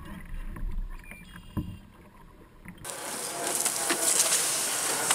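Faint water sloshing and knocks around a swamped plastic sandbox boat. After a cut, a louder steady rustling hiss with crackles as the tub is dragged up the bank through tall grass.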